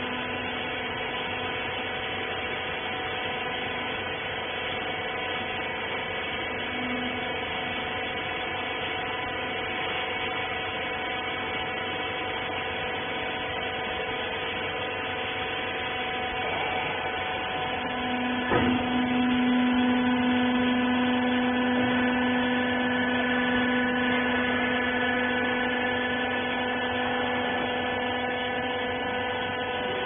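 Hydraulic rag baler's pump motor running with a steady hum of several tones. About two-thirds of the way in there is a sharp click, and a lower hum grows louder for about ten seconds, then eases off near the end.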